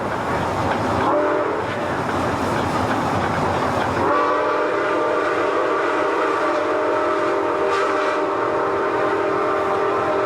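Steam locomotive whistle blowing in long, steady blasts of several tones at once while the engine runs. One blast cuts off right at the start, leaving the rumble of the running locomotive. The whistle sounds again about four seconds in and holds to the end.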